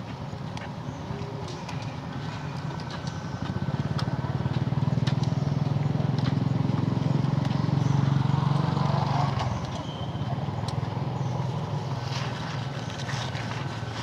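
A motor vehicle engine running nearby, growing louder about four seconds in and fading after about nine seconds, with scattered faint clicks.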